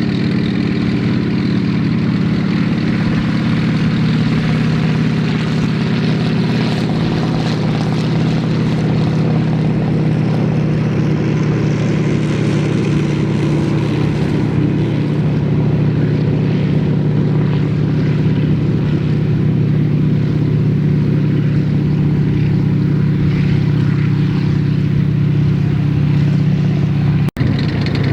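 Heavy vehicle engine running steadily with a deep, even drone, as a military vehicle moves. The sound cuts out for an instant near the end.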